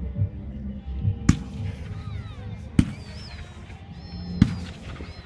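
Display fireworks bursting overhead: three sharp bangs about a second and a half apart, over music playing underneath.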